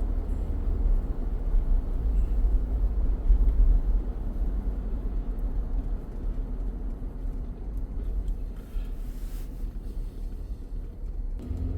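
Steady low road rumble of a moving car heard from inside the cabin: engine and tyre noise with no distinct events.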